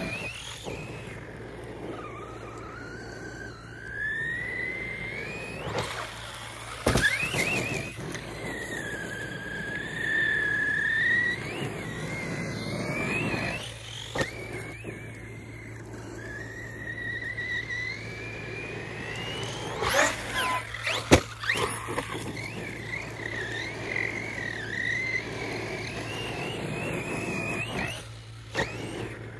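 Team Associated Rival MT8 RC monster truck's brushless motor and drivetrain whining on a 6S battery, the pitch rising and falling over and over as the truck speeds up and slows down. There are a few sharp knocks along the way.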